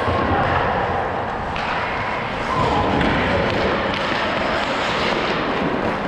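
Ice hockey play heard through a skating player's GoPro: skate blades scraping the ice and a constant rumble of the skater's motion on the microphone, with knocks of sticks and puck and faint shouts across the rink.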